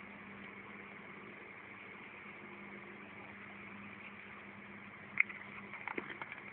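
Steady low hum with an even hiss, and about five seconds in a few sharp clicks and taps, the first the loudest, as fingers take hold of a thin white plastic cup.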